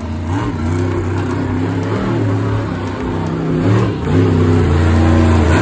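Monster truck engine revving as the truck drives across the dirt arena, the engine note wavering up and down and growing louder in the second half.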